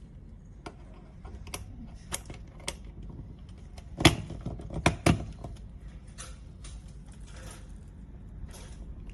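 Scattered clicks and knocks of small hard objects being handled, a few spaced over the first three seconds and the loudest cluster about four to five seconds in.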